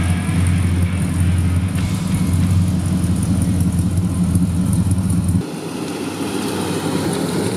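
Buick Riviera's big-block V8 idling steadily through a new stainless-steel exhaust. About five seconds in the sound drops suddenly, becoming quieter and thinner.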